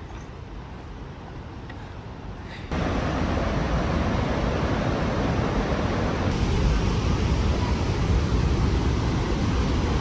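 The Rhine Falls, a large waterfall, rushing steadily. The rush is faint at first, then becomes suddenly much louder about three seconds in.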